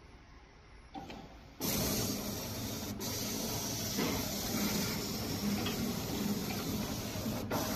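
EPE-250 air-bubble-film wrapping machine running with a loud, steady hiss like rushing air, which starts suddenly about a second and a half in and cuts out for an instant twice.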